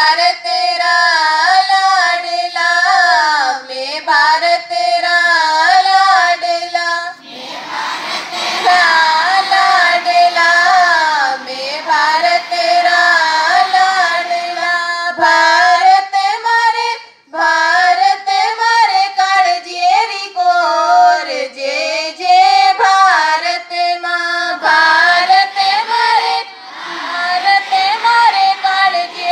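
Girls singing a school prayer together in one melodic line, amplified through loudspeakers. Stretches sung by a small group alternate with fuller passages where many voices sing at once.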